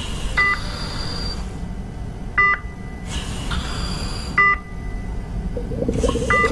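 Hospital patient monitor beeping, a short two-tone beep about every two seconds, four times, over a steady low hum and soft hiss of air. Near the end a scratchy rasping sound comes in.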